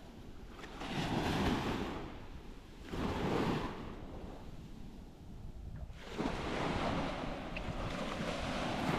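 Sea waves breaking and washing up a sandy beach, the surf swelling and fading about three times, with wind rumbling on the microphone.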